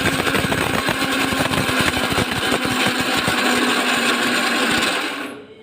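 Electric mixer grinder (mixie) running at full speed, grinding coconut, garlic and whole spices (dried red chillies, peppercorns, cloves, cardamom) before any water is added. It cuts off about five seconds in.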